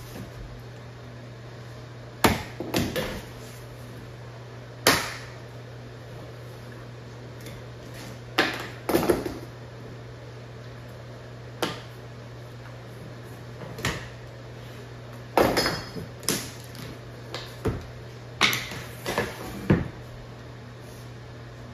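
Vinyl floor planks being handled and laid into place on the floor: a dozen or so irregular knocks and clatters, a second or several apart, over a steady low hum.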